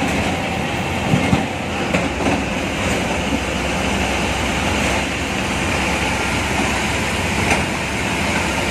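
State transport bus running along a road, heard from inside the front cabin: a steady engine and road noise with the body rattling, and a few sharp knocks over bumps about a second in, two seconds in and near the end.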